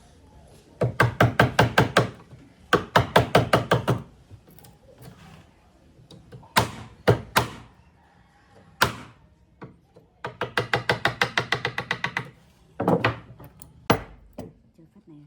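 Rapid runs of sharp knocks on wood, about nine strikes a second, three runs lasting a second or two each, with single knocks in between.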